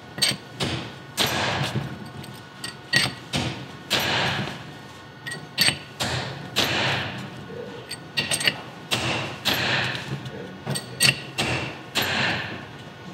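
Repeated, irregularly spaced hammer blows on a steel punch set in the ring gear bolt holes of a differential carrier, driving the ring gear off the carrier a little at a time.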